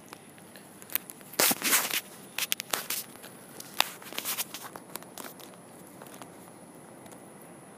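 A cat eating wet food off a crumpled paper tissue: a run of crackles, clicks and rustles from the tissue and its chewing, loudest about a second and a half in, thinning out after about five seconds.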